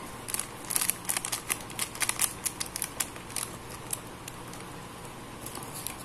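Sachet of ground pepper being shaken and tapped over a steel pot of water: a quick run of small ticks and crinkles that thins out after about three and a half seconds.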